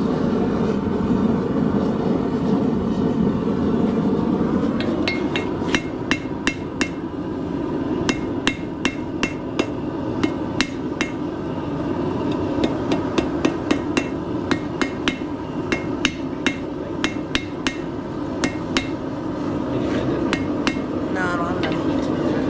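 Blacksmith's hammer striking hot square-tapered steel on an anvil, about two blows a second with a ringing ping, in runs broken by short pauses: straightening and cleaning up the taper. The blows start about five seconds in and stop a couple of seconds before the end, over a steady rushing roar.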